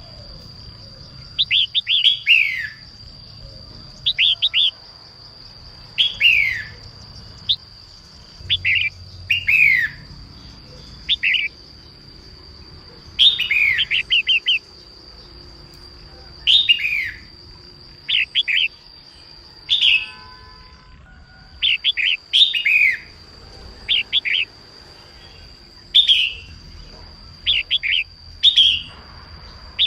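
Female red-whiskered bulbul singing: short falling chirps in quick clusters, repeated every second or two.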